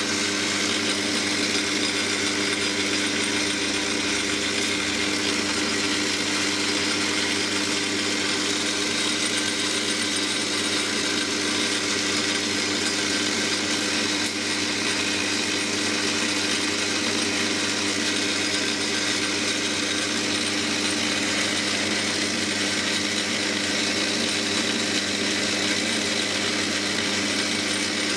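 Metal lathe running steadily while turning down a 304 stainless steel shaft, the cutting tool peeling off long stringy chips: a steady machine hum with a hiss over it.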